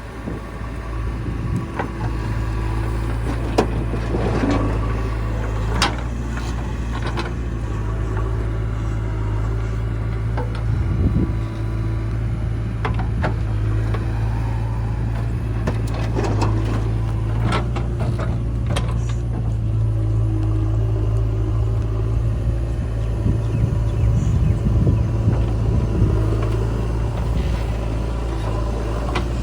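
Diesel engines of a JCB 3DX backhoe loader and a tractor running steadily, with scattered sharp clanks and knocks from the machine at work.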